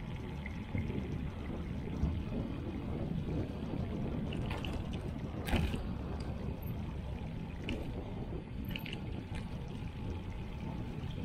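Steady low rumble of a bicycle rolling over paving, with wind buffeting the microphone. There are a few faint clicks and a sharper knock about five and a half seconds in.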